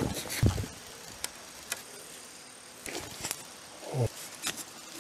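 A large natural fieldstone foundation stone being lowered and shifted on a bed of sand. There is a low thud about half a second in and another near the end, with a few small clicks of stone and grit in between.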